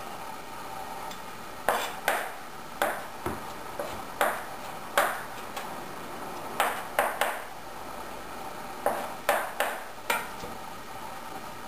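Chef's knife chopping garlic on a plastic cutting board: sharp knocks of the blade striking the board, in irregular clusters of two or three, about a dozen in all. A steady background hum runs under them.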